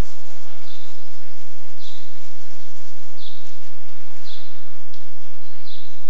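A short, high call repeating about once a second over a loud, steady hiss, like a bird calling.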